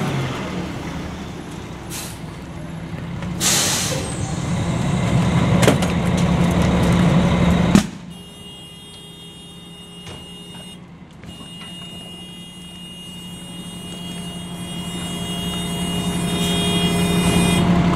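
Fire engine's diesel engine running as the truck pulls up, with a brief hiss of air brakes about three and a half seconds in. About eight seconds in the sound cuts to a quieter steady engine hum with faint high whines, growing louder toward the end.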